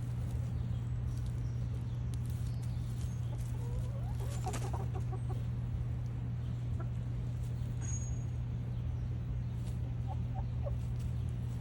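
Brooding hen clucking softly: a cluster of short low calls about four to five seconds in and a few more near the end, over a steady low hum.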